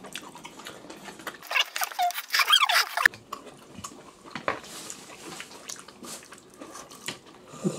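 Clinks and knocks of chopsticks and plastic takeout bowls during a meal, with a brief high, squeaky, wavering sound about a second and a half in that is the loudest thing heard.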